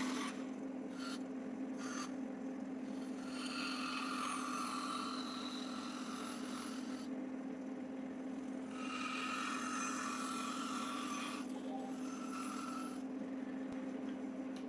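A power saw running steadily with a constant motor tone, cutting a curve into a timber handle blank. The blade bites into the wood twice, for about four seconds each time, with a harsher rasping sound.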